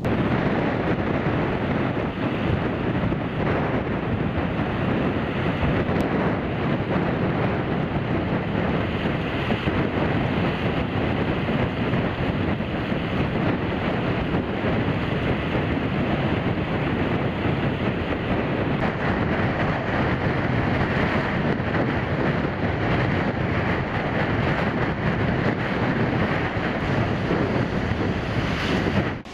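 Storm wind buffeting the microphone over a steady rush of a very rough sea and water washing over the road.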